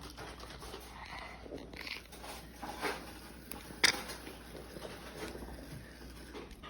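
Faint, irregular handling sounds of an aerosol shaving cream can being shaken and worked, with a sharp click about four seconds in.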